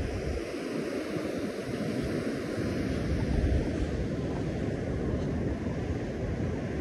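Steady rush of ocean surf, with wind buffeting the microphone in an uneven low rumble.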